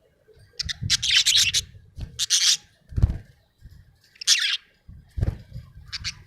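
Budgerigar chirping in four short bursts of rapid, scratchy chatter, the longest about a second in; two low thumps fall between the bursts.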